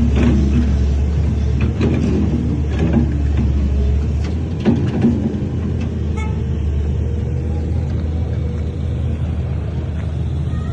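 Heavy diesel earthmoving machine's engine running steadily under load, with metal clanks and knocks several times over the first five seconds or so.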